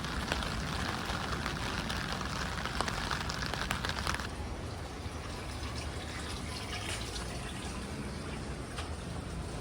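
Rain falling steadily with water running and splashing; a louder rush of water drops away about four seconds in.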